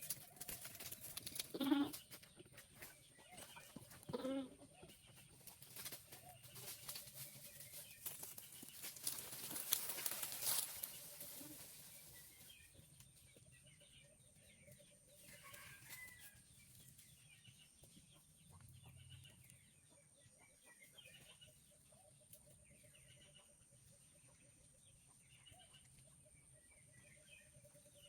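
Goats bleating twice, short calls about two and four seconds in, over rustling and clattering movement. After that, faint bird chirps repeat until the end.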